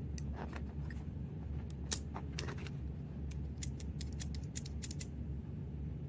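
Small mechanical clicks from the handle and latch mechanism of a fingerprint door lock being worked by hand: a sharp click about two seconds in, then a quick run of clicks near the end. The owner takes it for a mechanism that spins free with no back resistance instead of engaging.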